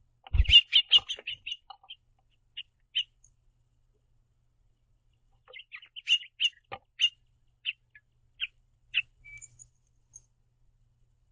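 House finches giving short, rapid chirps in two bouts, the first about a second long near the start, the second a string of chirps a few seconds later. A low thump comes just as the first bout begins.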